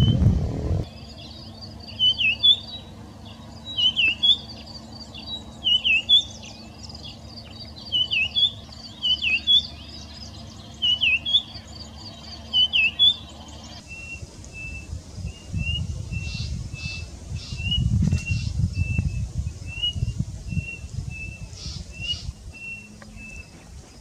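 Red-backed Scrub-Robin singing: short, clear whistled phrases repeated about once a second. About fourteen seconds in it gives way to a White-starred Robin's short, even notes, roughly two a second, over a low wind rumble.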